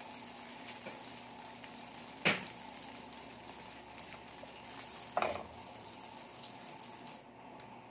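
Butter sizzling as it melts in a hot frying pan, a steady hiss that eases a little near the end. Two short knocks sound about two and five seconds in, the second as a spatula works the butter around the pan.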